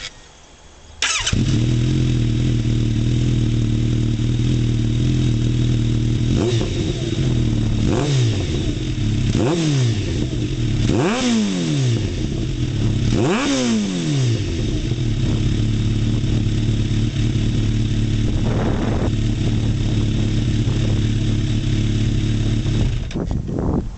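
Kawasaki ZRX1200 DAEG inline-four motorcycle engine through a k-factory MotoGP Round S aftermarket silencer. It starts about a second in and idles steadily, is blipped through several quick revs in the middle, then idles again and shuts off near the end.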